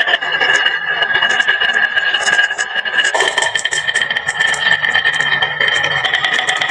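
Many marbles rolling and clattering down a wooden marble run: a dense, continuous stream of small clicks over a steady rolling ring.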